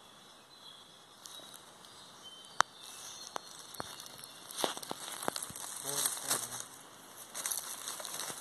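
Footsteps crunching through dry leaf litter, with irregular sharp crackles and snaps that come thicker in the second half.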